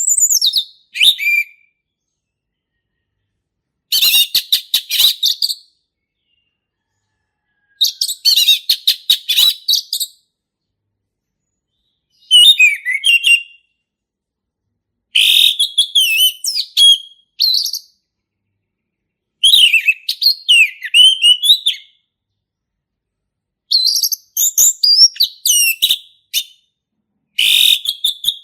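Male orange-headed thrush singing: loud, varied whistled phrases, some of them quick runs of repeated notes, each phrase a couple of seconds long with pauses of about two seconds between.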